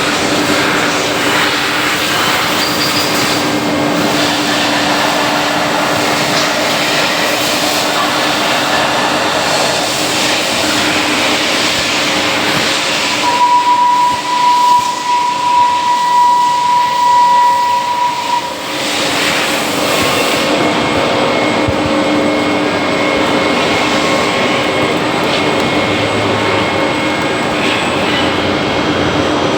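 CNC machine running with a loud, steady rushing noise and a constant low hum. For about five seconds in the middle a single high, steady whine rises over it while the noise level wavers, then the steady running resumes.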